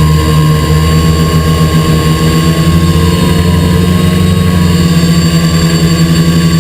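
XP2 quadcopter's electric motors and propellers whirring steadily, heard up close from the camera mounted on the drone, the pitch wavering slightly.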